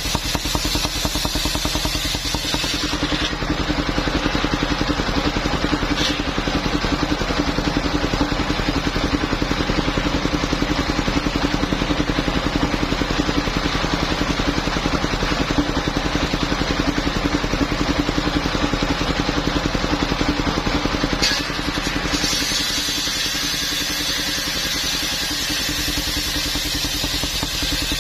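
Engine of a portable circular sawmill running steadily, with a fast even firing pulse. A higher hiss is present at the start, drops away about three seconds in, and comes back for the last several seconds.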